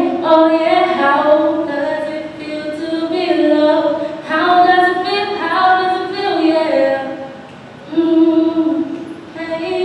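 A young woman's solo voice singing unaccompanied into a microphone, with long held notes and a short break for breath about seven seconds in.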